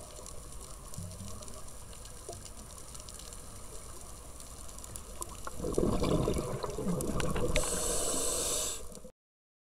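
Underwater ambience from a dive camera: a steady wash of water noise with faint clicks. About six seconds in it swells into a louder rush of water and bubbles that turns hissy near the end. It cuts off suddenly just after nine seconds.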